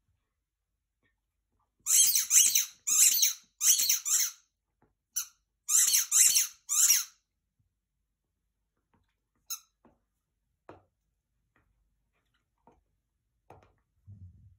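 A dog's squeaky chew toy squeaking again and again as the dog bites down on it: about half a dozen sharp, high squeaks in quick clusters, starting about two seconds in and stopping about seven seconds in, then a few faint clicks of chewing.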